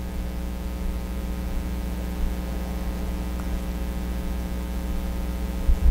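Steady electrical hum with a hiss: room tone carrying mains hum. A low bump comes near the end.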